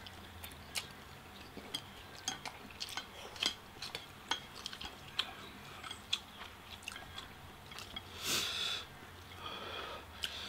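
Close-up eating sounds: chewing and small mouth clicks mixed with chopsticks tapping against ceramic plates of instant ramen, with one brief hissing sound about eight seconds in.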